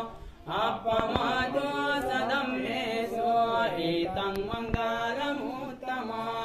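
A man's voice chanting a Buddhist ritual recitation in a sing-song melody, with long held phrases and a brief breath pause about half a second in.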